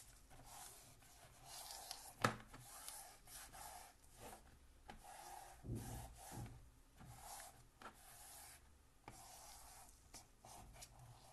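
Faint rubbing and rustling of hands pressing and smoothing a sheet of watercolour paper taped to a board, with one sharp tap about two seconds in and a few soft bumps partway through.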